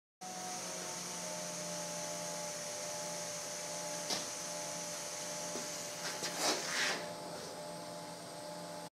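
Steady hum of a MIG welding machine idling between weld passes, with a faint high hiss under it. A single sharp click comes about four seconds in, and a short cluster of knocks and rustles comes around six to seven seconds in.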